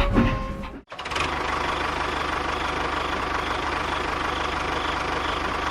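Music for about the first second, then a small engine running steadily at idle with an even, rapid pulsing beat.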